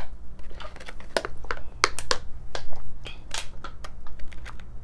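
Scattered sharp clicks and crackles as a fork works toppings into crisp hard taco shells on a plastic plate, over a steady low hum.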